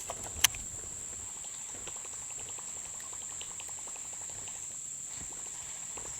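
Steady high-pitched insect chorus from the riverbank, with one sharp click about half a second in.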